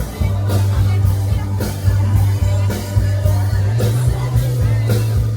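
Music with a heavy bass line and a steady drum beat.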